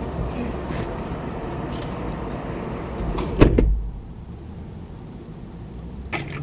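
A car door shutting with one solid thump about three and a half seconds in. Before it, outside noise comes in through the open door; after it, the car's cabin is quieter.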